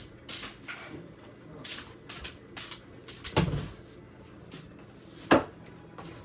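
Clatter of household things being handled, a series of short knocks with two sharper bangs, one about three and a half seconds in and the loudest near the end.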